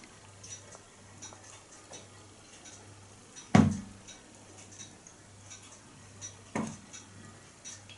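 Small steam-powered pop-pop boat running in a bathtub with a faint, regular ticking, which the builder calls virtually silent. About halfway through, and again some three seconds later, comes a sharp knock that rings briefly, as the hull bumps the side of the tub.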